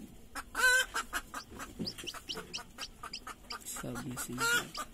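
Chickens calling: a loud drawn-out call just under a second in and another near the end, with short high rising peeps and scattered soft clicks between them.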